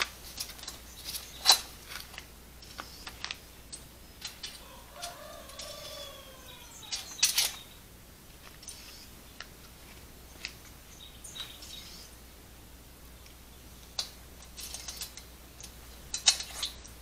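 Sharp clinks and knocks from the hang glider cart's frame as its pins are pulled and the frame is handled, the loudest about a second and a half in and more near the end. A rooster crows once in the background, one long rising-then-falling call between about four and seven seconds in.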